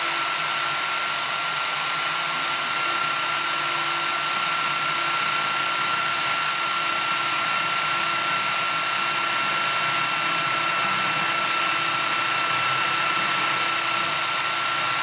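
Corded electric drill serving as the headstock of a homemade mini lathe, running steadily at constant speed with a high motor whine.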